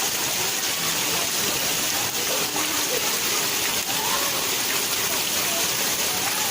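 Heavy rain falling steadily, a constant hiss of water, with faint children's voices now and then.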